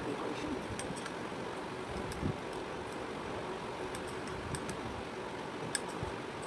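Scattered light clicks and scrapes of a metal table knife against a small glass bowl as cream is scooped out to spread on a cake, over steady faint background noise.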